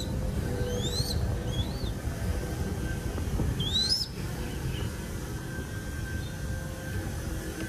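Crested goshawk chick giving short, high, upward-sliding begging squeaks while being hand-fed, three or four calls with the loudest about four seconds in, over a steady low rumble.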